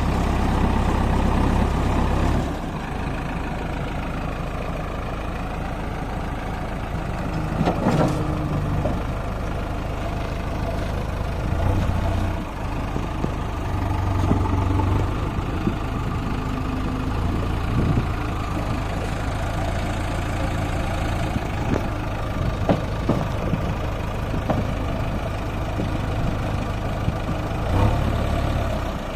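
Heavy diesel machinery running with a steady low rumble that swells several times as the engine is revved, with a few short sharp knocks.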